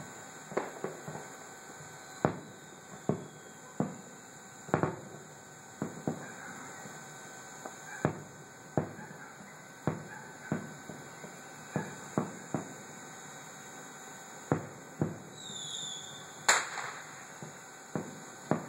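Distant aerial firework shells bursting: some two dozen booms at uneven intervals, each with a short echoing tail. The loudest comes near the end, just after a brief high whistle. A faint steady hiss and hum run underneath.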